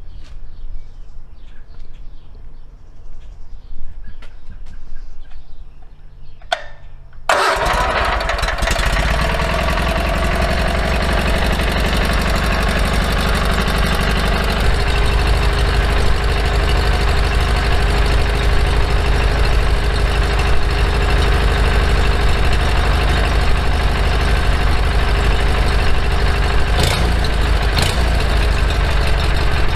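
The small gasoline engine on a homemade band sawmill starts suddenly about seven seconds in and then runs steadily. Before it starts there are only a few faint clicks.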